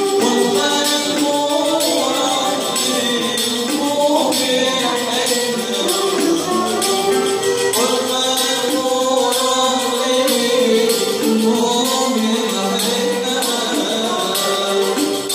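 Small Tunisian traditional ensemble playing live: violin, oud and clarinet carrying the melody over a riq, a small frame drum with jingles, keeping a steady rhythm.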